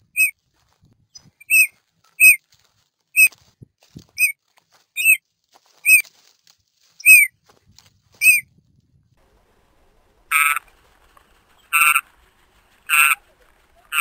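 Temminck's courser calling: a run of short, sharp, up-and-down call notes, about one a second. After a pause of about two seconds come four longer, harsher and lower calls.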